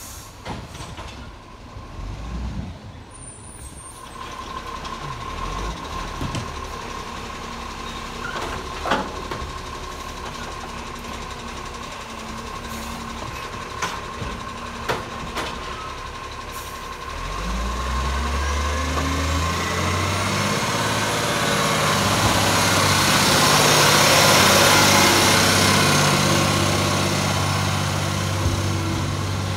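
Iveco Acco garbage truck: a reversing beeper tones through the first half, with a few sharp knocks. Then, a little past the middle, its diesel engine starts pulling hard and grows loud as the truck drives close past, loudest a few seconds before the end.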